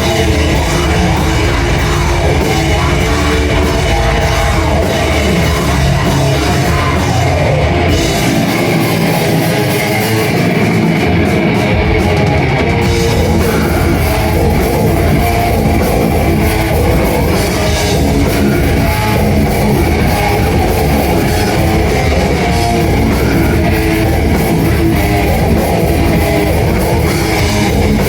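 Loud rock music with drums and electric guitar; the bass and kick drop out for a few seconds about eight seconds in, then come back.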